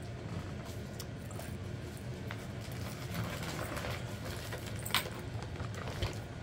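Steady low hum of room noise with a few faint clicks, a sharper click about five seconds in and a dull thump shortly after.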